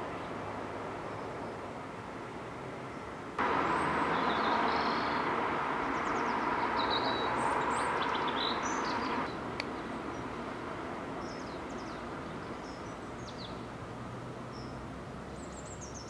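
A steady background hum becomes abruptly louder about three seconds in and drops back about nine seconds in. Through it come short, scattered, high chirps of small songbirds.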